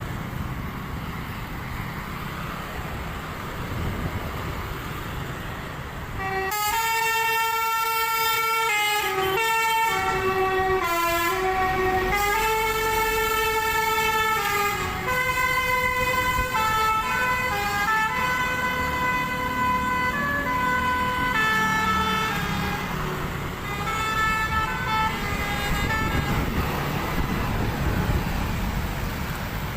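Bus's basuri telolet horn, a multi-tone musical air horn, playing a tune of held notes that step from pitch to pitch. It starts about six seconds in after a stretch of engine and road rumble, and runs for about twenty seconds over that rumble.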